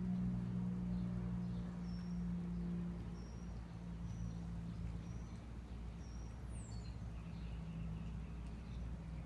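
A small bird chirping outdoors, one short high chirp about once a second, with a single falling whistle midway, over a steady low hum.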